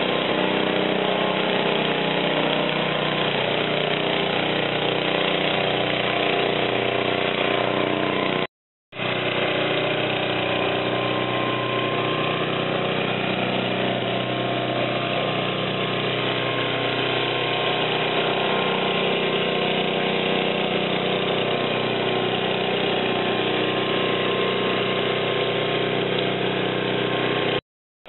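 34-year-old Bob-Cat snow thrower's gasoline engine running steadily under load while throwing snow. The sound drops to silence for an instant twice, about a third of the way in and near the end.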